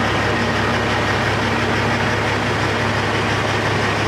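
Peterbilt 389 semi truck's diesel engine idling steadily, heard from inside the cab as a low, even hum.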